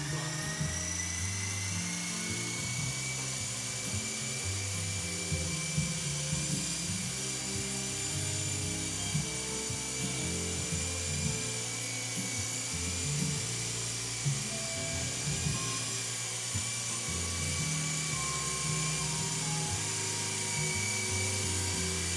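Helimax Axe CX Micro coaxial electric helicopter hovering: the steady high-pitched whine of its small electric motors and rotors, with music playing in the background.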